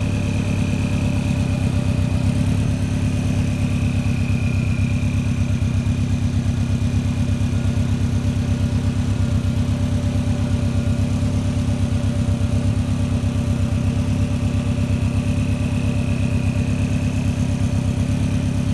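Turbocharged Subaru WRX flat-four engine in a VW bus running steadily at idle, with a thin steady high whine over the engine note.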